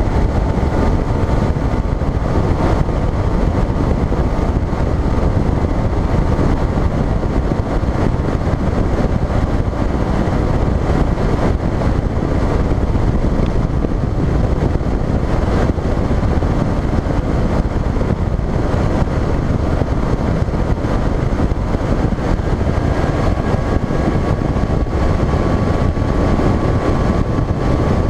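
Bass boat running at speed: the outboard motor's steady drone with a faint high whine, mixed with wind rushing over the microphone.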